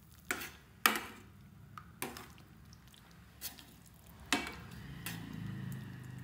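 Steel ladle stirring thick masala and boiled eggs in a stainless steel kadhai, with several sharp clinks of metal on metal at uneven intervals.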